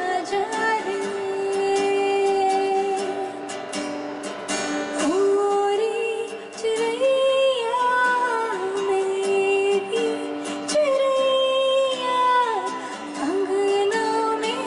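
A female vocalist sings a Hindi film song with long held notes and sliding ornaments, accompanied by an acoustic guitar.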